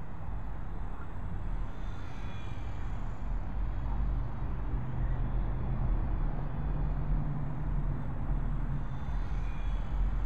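Distant RC model airplane in flight, the faint whine of its motor and propeller dipping in pitch as it passes, twice, over a steady low rumble.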